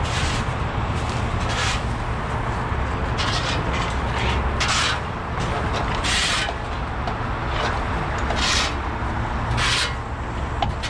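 An overturned utility truck being winched upright by a heavy rotator wrecker: repeated short scraping and rasping sounds from the shifting truck body over a steady low engine rumble.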